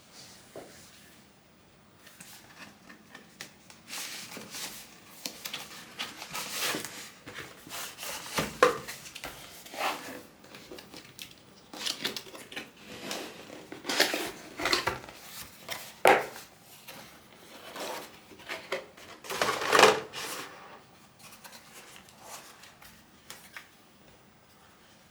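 Unboxing handling noise as a keyboard's packaging is opened: irregular rustling and scraping of box and wrapping, with several sharp knocks and clacks, settling down near the end.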